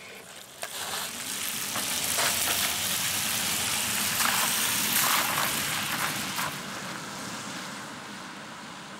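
Volvo XC40 SUV driving by on wet asphalt: the hiss and spray of its tyres on the wet road, swelling to its loudest around the middle and then easing off as it moves away.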